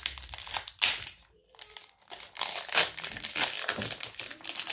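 Foil Pokémon card booster pack crinkling as it is handled and torn open, in irregular bursts with a short pause a little over a second in.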